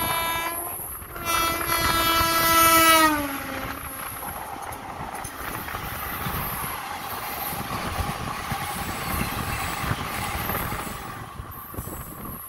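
The horn of an oncoming Indian Railways electric locomotive sounds twice. The second, loudest blast drops in pitch as the locomotive passes close by. Then its ICF passenger coaches rush past alongside with a steady rumble and clatter of wheels.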